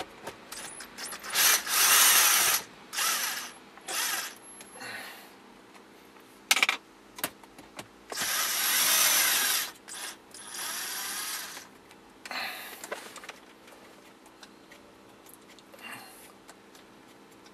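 Cordless power driver with a socket bit spinning 10 mm dash screws, the motor run in several short trigger bursts with pauses between, the longest near the middle.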